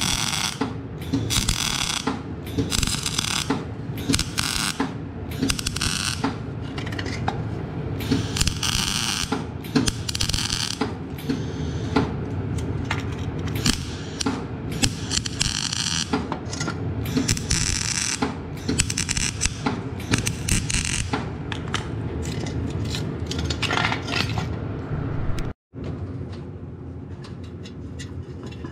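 MIG welder's arc crackling in short repeated bursts as a steel exhaust pipe is stitch-welded, over a steady low hum. About 25 seconds in the crackling stops abruptly, leaving quieter background noise.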